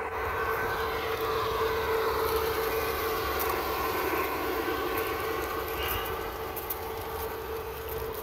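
G-scale model freight train rolling past: a USA Trains NW2 diesel switcher and calf unit pulling Aristocraft two-bay coal hoppers. There is a steady hum and a rolling rumble, and from about three seconds in, light clicks from the wheels on the track.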